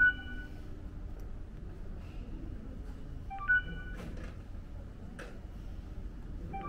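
Ticket kiosk touchscreen sounding its short electronic button-press chime three times, a quick rising run of notes each time, near the start, about three and a half seconds in, and at the end. A few faint clicks come between the second and third chimes.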